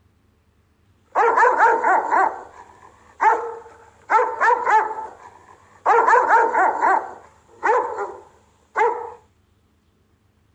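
Rottweiler barking in rapid bursts of several barks each, starting about a second in, with short pauses between bursts and a single last bark near the end.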